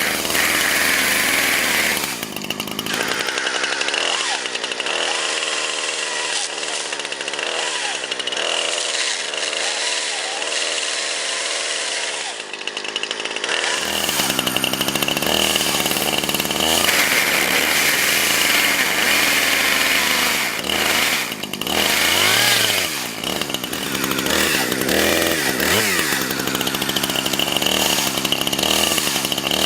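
Chainsaw engine running and revving, its pitch rising and falling, as the saw cuts into a Samsung Galaxy S4 smartphone clamped in a vise.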